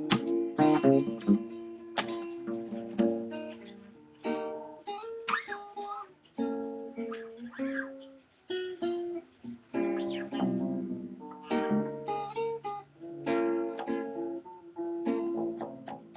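Acoustic guitar (violão) and acoustic bass guitar playing together: plucked melody notes and chords over low bass notes, in phrases with short pauses between them.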